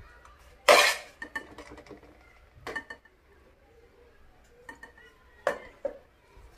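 Dishes and cutlery clattering as food is served onto plates: one loud clatter about a second in, then scattered lighter clinks and knocks.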